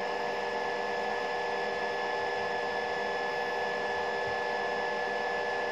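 Compression testing machine running on rapid approach, its drive giving a steady whine with several constant tones as the upper platen moves down toward a mortar prism half in the compression jig.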